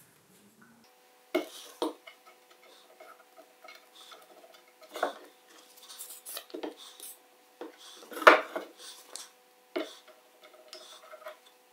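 Small clicks, taps and light knocks from gluing up a wooden frame: a plastic wood-glue bottle being squeezed and handled while the glue is spread on the tenons with a thin wooden stick. A sharper knock comes about eight seconds in.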